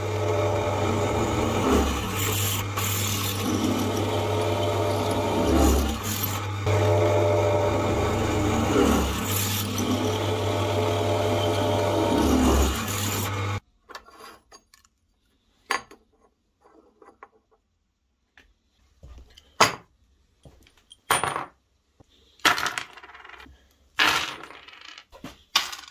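Drill press running with its bit cutting into a square steel tube, a steady motor hum under the cutting noise, stopping abruptly about 13 seconds in. Then a string of separate sharp metallic clinks as steel bolts and washers are handled and set down on a wooden workbench.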